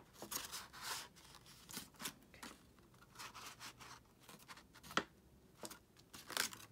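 Stiff 67 lb Neenah cardstock petals rustling and rubbing in the hands as they are pressed together, in short irregular scrapes, with a sharp click about five seconds in.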